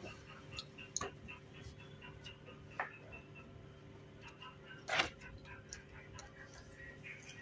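Stiff card stock being handled and folded by hand on a cutting mat: a few sharp taps and light rustles, the loudest about five seconds in. Underneath are a steady low hum and, for the first few seconds, a faint rapid high ticking.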